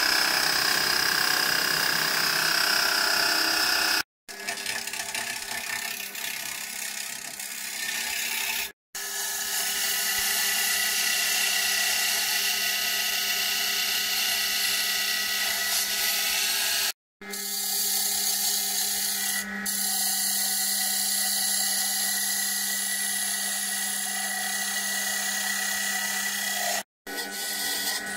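A wood lathe running with its motor humming steadily while a spinning wooden blank is drilled with a bit in the tailstock chuck and then shaved with a hand-held turning tool. The sound cuts off and resumes abruptly four times.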